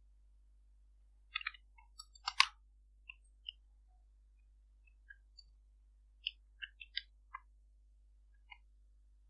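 Computer keyboard keystrokes: scattered clicks in small irregular clusters as code is typed, with the loudest clack about two and a half seconds in.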